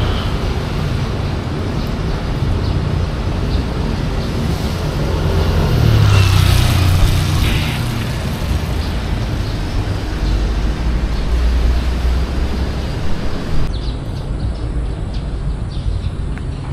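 Street traffic: a steady rumble of vehicles passing, with one louder pass about six to seven seconds in. Near the end the high hiss drops away abruptly.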